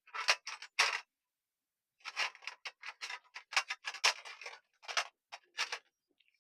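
Irregular metallic clicks and clinks of small steering-rack parts being handled and fitted during rack-and-pinion assembly: a few in the first second, then a denser run from about two seconds in to nearly six seconds.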